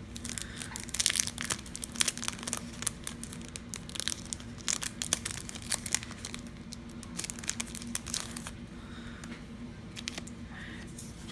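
Clear plastic sleeve crinkling and crackling as it is peeled open and a stack of paper die cuts is pulled out and handled. The crackling is dense for most of the stretch and thins out near the end.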